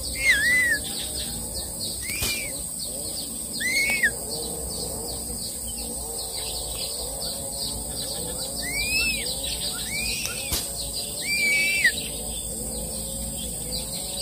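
Crested serpent eagle at the nest giving short, loud whistled call notes that rise and fall in pitch, repeated every second or two. Faint chirps of other small birds and a steady high insect whine sit behind them.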